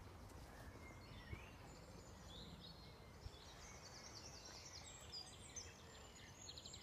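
Faint birdsong: varied short chirps and whistles from small birds, with a quicker run of high notes near the end, over a low outdoor rumble.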